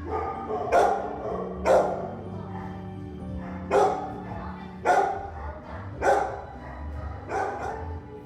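A dog barking, about seven barks spaced irregularly, a pair close together near the end, over steady background music.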